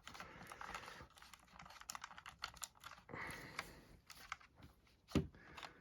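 Faint, irregular clicks and taps of small hard plastic parts being handled: a small action figure being worked into the seat of a toy RC buggy.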